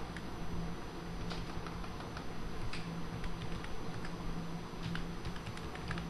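Computer keyboard being typed on: irregular clicks of keystrokes as a name is corrected and a password entered, over a steady low hum.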